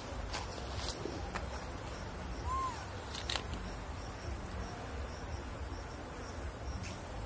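Steady high-pitched insect buzzing under a low rumble, with a few faint clicks and one short chirp about two and a half seconds in.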